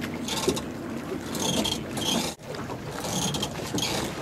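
Wind and water wash around a boat on open water: a steady hiss with brighter surges that come and go about every second and a half. It cuts out briefly a little past halfway.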